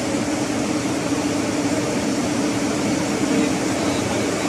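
Ship's engine-room machinery running steadily: a continuous loud drone with a steady low hum and no breaks or alarm tones.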